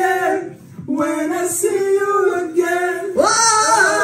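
Men singing in long, wavering held notes, with a short break about a second in; near the end a higher, brighter voice cuts in.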